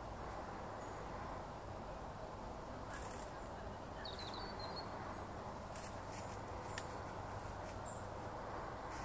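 Eurasian otters feeding on fish: a few faint crunching clicks over a steady background hiss, with a brief high chirp about four seconds in.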